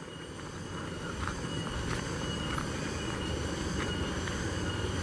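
Footsteps and rustling through rice plants along a paddy bund, heard as a low rumbling noise that slowly grows louder, with a few faint knocks. A faint, steady high insect tone runs underneath.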